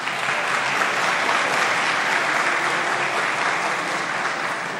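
Applause from members of parliament seated in the assembly chamber, steady and dense, starting to die down near the end.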